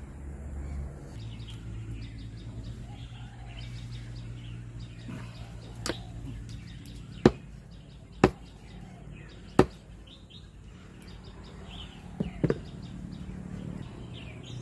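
Knife striking a wooden chopping block as boiled chicken is cut: sharp single knocks about a second apart, then a quick pair near the end. Faint bird chirps sound behind them.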